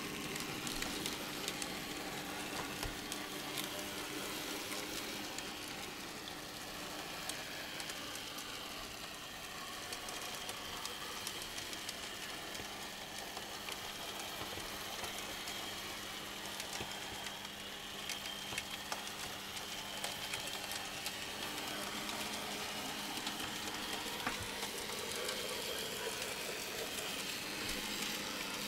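A 009 model locomotive on a Kato 2-8-0 chassis running along the track, its small electric motor giving a steady hum and hiss, with light scattered clicks from the wheels.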